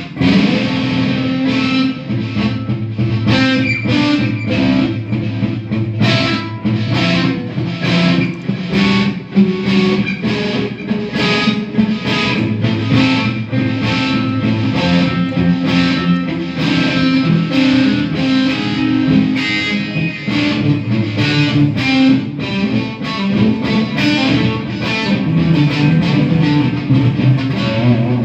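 Electric guitar played through a combo amplifier on a crunchy overdriven tone: fast picked riffs and chords that run on without a break.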